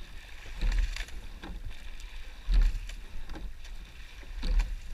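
Racing eight-oared rowing shell under way at about 30 strokes a minute: a rhythmic stroke about every two seconds, three in all, each a low thump with clicks and clunks of the oars in their oarlocks and the blades catching the water, over water rushing past the hull.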